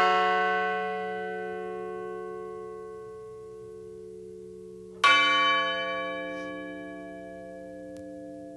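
A large memorial bell tolled in remembrance of a name just read: struck right at the start, ringing out with many overtones and slowly fading, then struck again about five seconds in and ringing down.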